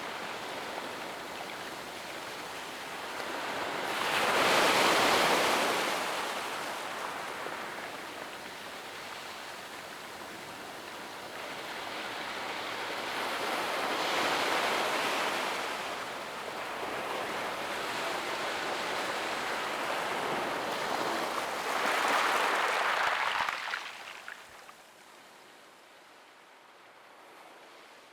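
Small sea waves breaking gently and washing up a sandy beach, with three louder surges of surf about eight or nine seconds apart over a steady wash. The sound fades down near the end.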